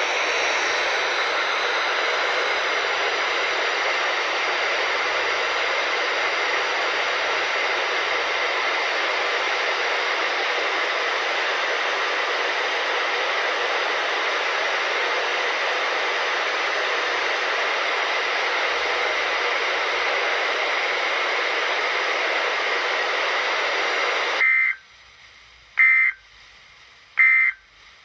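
Weather radio receiver playing steady hiss over an open channel where the live warning audio failed to transmit; the hiss cuts off about 24 seconds in. Then three short bursts of EAS/SAME data tones about a second and a half apart: the end-of-message signal.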